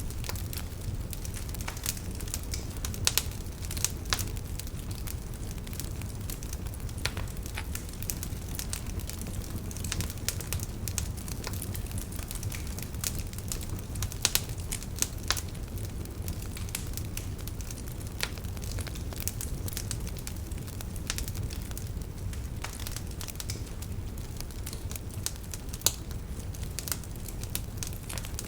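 Wood fire burning in a fireplace: a steady low rumble of flames with irregular crackles and sharp pops, a few of them louder.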